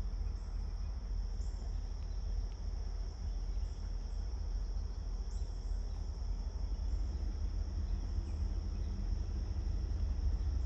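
Insects chirring in a steady, unbroken high chorus over a low rumble that grows slightly louder toward the end.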